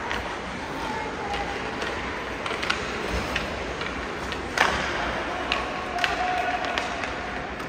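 Background of faint voices and general noise, with several sharp knocks, the loudest about four and a half seconds in.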